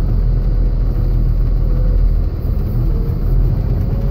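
A big truck's engine and road noise heard from inside the cab while driving: a steady low rumble.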